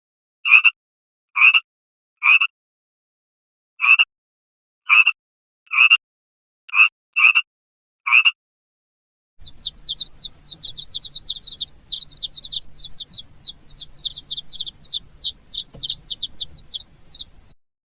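Bird calls in two parts. First come eight short chirps at irregular gaps of about a second. Then a fast, steady run of high, falling twittering notes, several a second, lasts about eight seconds.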